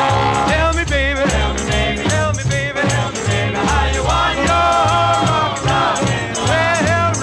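Upbeat music with a steady beat, shaker-like percussion, bass and a sung melody.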